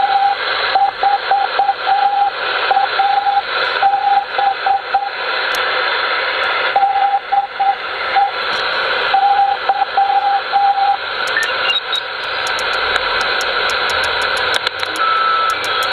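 Morse code from a 6-metre amateur radio beacon received on a Uniden HR2510 transceiver through a transverter: a single tone keyed on and off in dots and dashes over steady receiver hiss. About eleven seconds in the keying stops and only the hiss remains, with a run of quick clicks as the tuning dial is turned.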